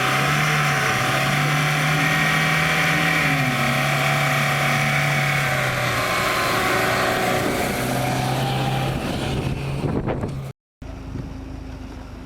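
Off-road vehicle's engine running hard, its pitch rising and falling as it is revved, with a loud hiss over it. About ten and a half seconds in the sound cuts off abruptly and a quieter, steadier engine hum follows.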